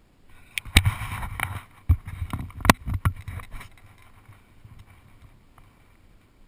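A rock climber's gear and body knocking and scuffing close to a body-mounted camera: a cluster of sharp clacks and rubbing noise from about half a second to three and a half seconds in, then settling.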